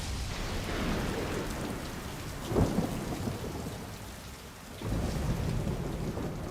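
Thunderstorm: steady heavy rain under low rumbling thunder, with a sharp thunderclap about two and a half seconds in and another surge of rumbling thunder about five seconds in.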